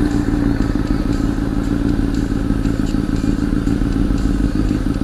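Honda CBR1000 inline-four engine with a Two Brothers aftermarket exhaust running at a steady cruise, with wind rush.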